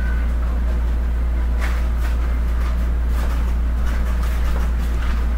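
A steady low hum runs throughout, with scattered light clicks and rustling over it.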